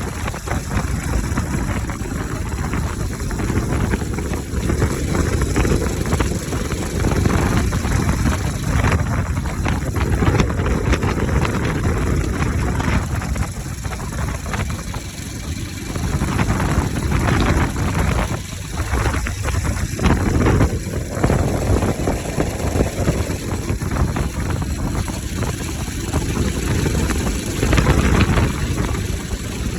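Bajaj Pulsar RS 200's single-cylinder engine running with its air filter removed, revved up and eased back several times.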